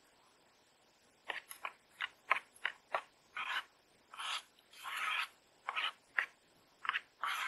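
Long-handled metal spoon stirring thick soup in a metal camping pot: a run of short clicks and scrapes against the pot's wall and bottom, with a few longer scrapes in the middle.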